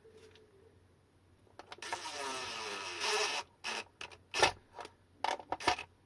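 A screw being driven into the battery's connector base, a rough scraping and grinding for about a second and a half, followed by several sharp clicks and knocks of small parts being handled, the loudest about halfway through.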